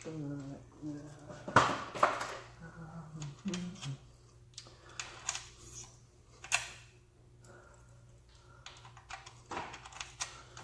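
Small steel transmission parts clicking and clinking as they are handled and set down, a handful of separate sharp taps spread out with quiet between them. A low mumbling voice runs through the first few seconds.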